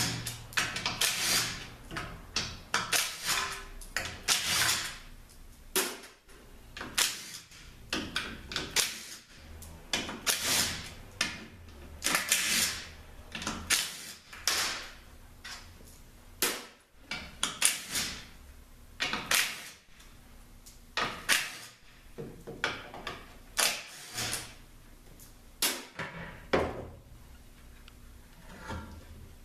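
Hand tools and metal transmission parts of a Chrysler 48RE automatic transmission clanking and scraping as it is taken apart: irregular knocks and clicks, roughly one to three a second, with no power tool running.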